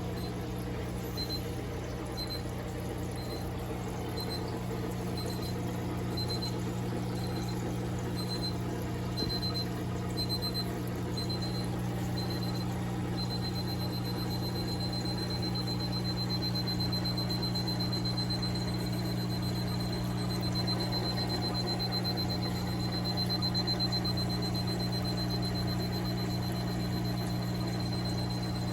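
Aquarium equipment running with a steady low electrical hum. Over it, a thin high electronic beep sounds about once a second, then becomes one continuous tone about halfway through.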